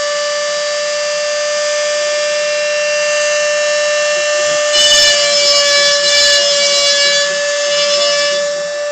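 Homemade CNC router milling a LiPo battery plate: a steady high-pitched whine from the spindle and cutter. About five seconds in, the cutting noise grows louder and harsher for a few seconds, then eases near the end.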